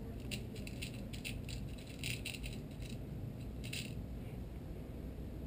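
Small metal crimps rattling and clicking in a clear plastic box as fingers pick through them for one. The run of light clicks stops about four seconds in.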